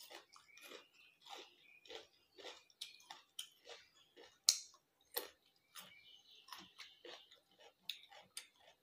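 A person chewing food close to the microphone, with soft wet mouth smacks about twice a second and one sharper click about four and a half seconds in.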